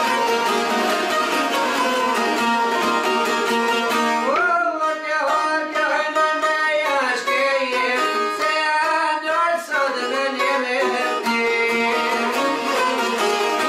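Several long-necked Albanian lutes (çifteli) strummed together in a fast, busy rhythm. About four seconds in, a man's solo voice enters with a long, wavering sung line over lighter plucking. After about ten seconds the full strumming returns.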